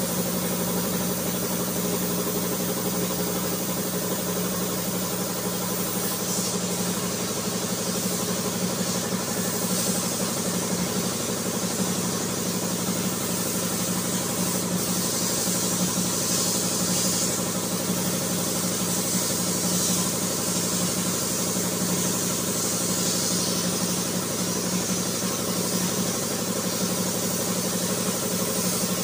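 Air compressor running with a steady motor hum that holds the same pitch throughout. There are stretches of added high hiss about six and fourteen seconds in.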